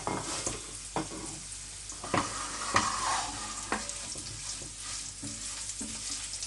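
Garlic, cumin seeds, whole red chillies and urad dal sizzling in hot oil in a pan as the tempering is stirred, with several sharp knocks of the stirring utensil against the pan in the first few seconds.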